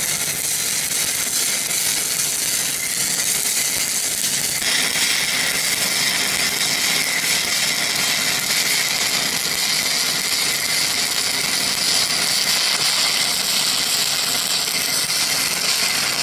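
Stick welding arc crackling steadily as a 3/32-inch rod runs the root pass, dragged along a horizontal groove joint with a backing strap.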